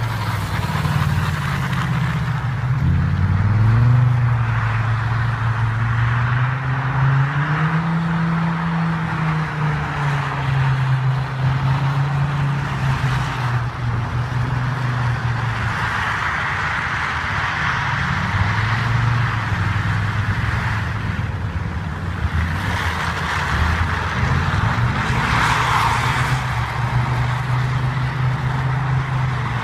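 Audi S5 engine revving up and down over and over as the car slides sideways through a snow-covered lot, with a steady hiss from the tyres spinning in the snow.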